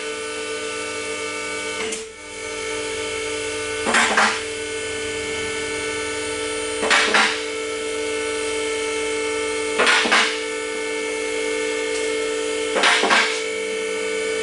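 CJ Autos CJ07 two-post car lift raising a car: the electric power-unit motor hums steadily, and the safety locks clack in a quick double knock about every three seconds as the carriages pass each lock position.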